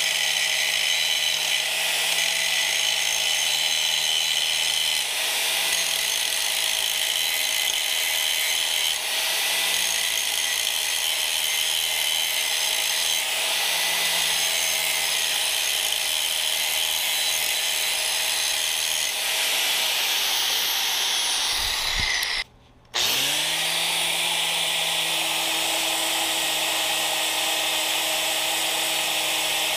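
Handheld angle grinder grinding steel, a steady motor whine under a hiss of abrasive on metal. About two-thirds of the way through it cuts out for under a second, then spins back up to speed and runs on.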